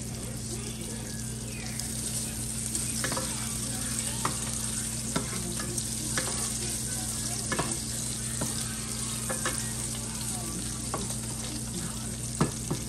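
Chopped bacon sizzling in a nonstick skillet as it fries. It is stirred with a wooden spatula that scrapes and taps the pan about once a second, with a sharper knock near the end.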